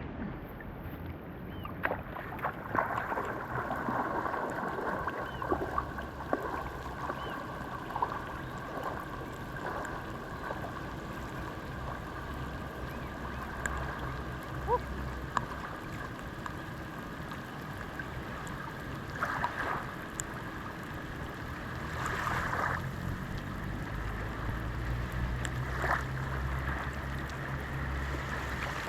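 Water running and lapping, with scattered small taps and drips and a few brief louder swells.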